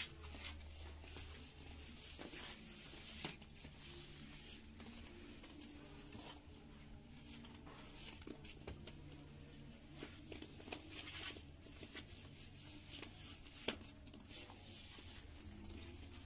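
Plastering trowel spreading and scraping a thin coat of wet cement plaster onto a lightweight AAC block wall: irregular soft scrapes and slaps, with a few sharper knocks now and then.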